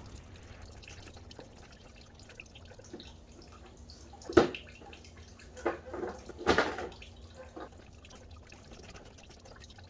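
Radiator coolant draining into a catch pan, a faint trickle and drip, with a few sharp metallic clanks of hand tools as the car battery's negative cable is disconnected. The loudest clank is about four seconds in, and smaller ones follow over the next three seconds.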